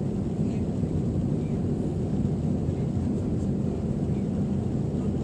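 Steady low-pitched cabin noise of an Airbus A321: its IAE V2500 turbofan engines and airflow heard from inside the passenger cabin.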